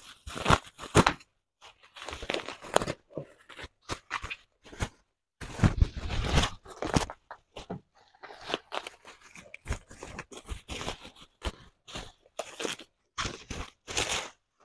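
Black plastic bag and bubble wrap rustling as they are pulled off a package by hand, in many short, irregular bursts, heaviest about six seconds in.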